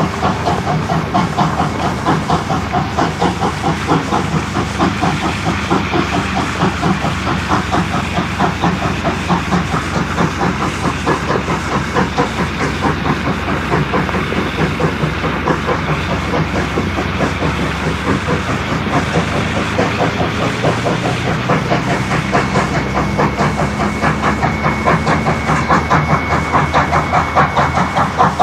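Steam locomotive Rx207, a South Australian Railways Rx class 4-6-0, working hard up a grade, with a steady, even rhythm of exhaust beats and the hiss of steam. It is heard through a microphone hung out of a car window running alongside.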